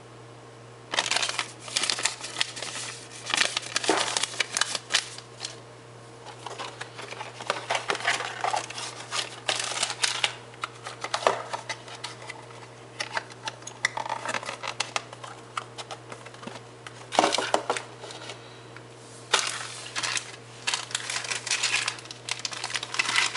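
Irregular rustling and crinkling of paper, cardboard and plastic packaging being handled, with a few light knocks, over a faint steady hum.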